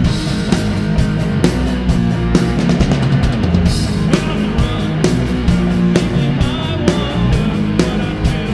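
Rock music: a band playing with guitar and a drum kit, with steady drum hits keeping the beat.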